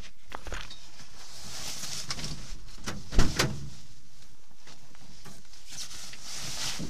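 Rustling and rubbing of a camera being handled and repositioned, with two sharp knocks close together about three seconds in.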